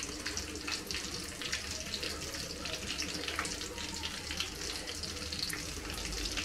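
Steady background hiss, like running water, with faint soft ticks from cooked green beans being picked from a bowl and laid in a metal mould.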